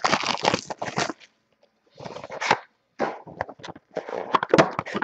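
Rustling and clattering of trading cards and their packaging being handled, in short bursts with brief pauses.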